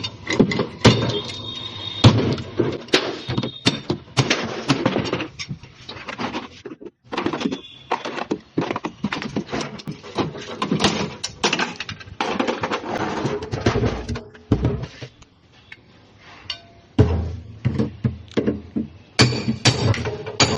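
Irregular metal knocks and clanks of a refrigerator's sheet-metal body being struck and broken apart for scrap, some blows ringing briefly. The knocks ease off for about two seconds near the end, then start again.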